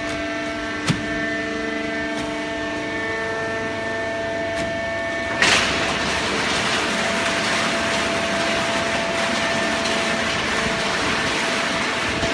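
Hydraulic waste-paper baling press running: a steady machine hum with several even tones and one sharp click about a second in, then about five seconds in a loud hiss sets in suddenly and carries on steadily.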